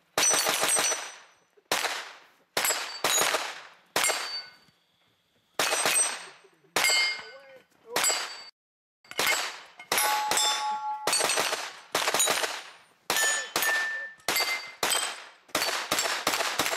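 Pistol-caliber carbine shots at steel targets, each crack followed by the ring of the struck steel plate. About twenty shots come at an uneven pace, some in quick pairs, with short pauses between target transitions.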